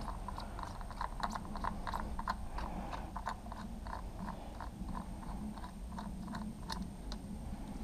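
Ratcheting screwdriver turning out a fairing screw on a motorcycle, a run of light, irregular clicks at about three to four a second.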